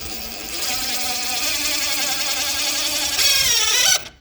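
Electric drill driving a screw into a wooden frame corner: the motor runs steadily under load, its pitch dropping about three seconds in as the screw tightens, then stops.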